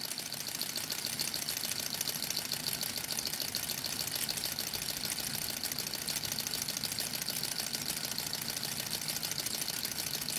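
Small model Stirling hot-air engine with a brass cylinder and graphite piston running steadily, turning a model helicopter's rotor, with a rapid, even mechanical ticking.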